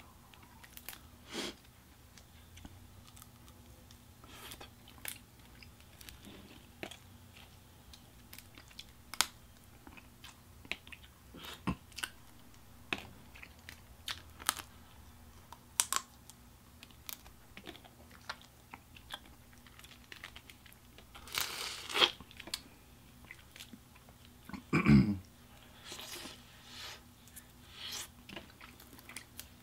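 Boiled crawfish being peeled by hand and eaten: scattered sharp cracks and clicks of the shells breaking, with chewing in between. The loudest moments are a longer crackling stretch about three-quarters of the way through and a short low sound just after it.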